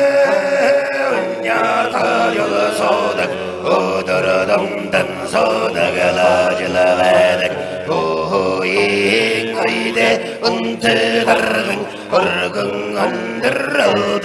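A man chanting a Mongolian Altai praise song (Altai magtaal) in long held notes, over a rhythmic plucked tovshuur accompaniment.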